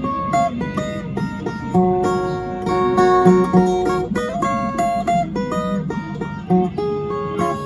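Brazilian viola, a ten-string guitar, picking an instrumental passage of plucked and strummed notes between sung verses.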